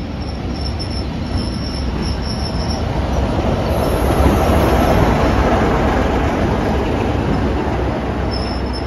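Class 33 diesel locomotive D6575 running past close by, its Sulzer eight-cylinder engine giving a steady low drone over rail and wheel noise. It builds to its loudest about four to five seconds in as the locomotive draws level, then eases slightly.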